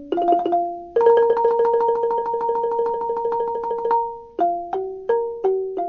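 Instrumental intro music of struck, ringing notes, with a chord rapidly repeated for about three seconds in the middle before single notes return.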